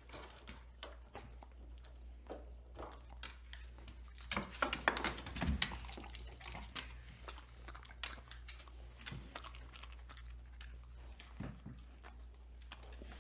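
Dogs chewing and crunching marrow-filled biscuit treats: a run of small crunches and clicks of teeth, busiest about four to seven seconds in.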